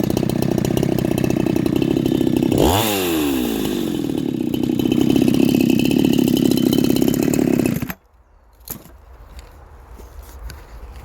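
Ported Husqvarna 372XP-clone two-stroke chainsaw running, its pitch swooping quickly about a quarter of the way in, then running steadily until it cuts off abruptly about three-quarters through, followed by a faint click.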